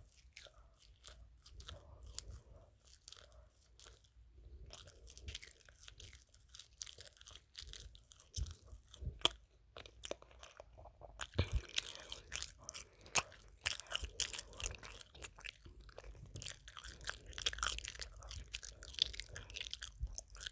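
A person biting and chewing pizza close to the microphone: irregular short clicks and smacks of mouth and food, busier and louder about halfway through.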